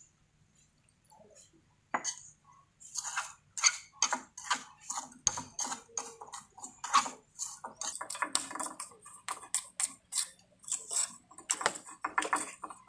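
A spatula scrapes and clinks against a porcelain dish as moist soil is mixed with water into a paste for the liquid limit test. It comes in quick, irregular strokes that start about two seconds in.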